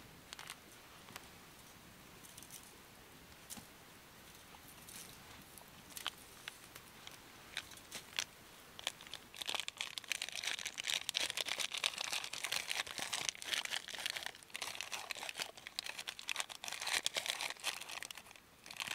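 Crinkling and rustling handling noise with scattered sharp clicks, turning into a dense, continuous crinkling from about halfway through.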